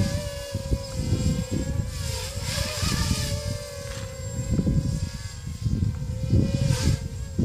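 A 3D-printed ZMR250 quadcopter's Multistar Elite brushless motors and propellers whining in flight, the pitch wavering up and down as the throttle changes, over a low, gusty rumble.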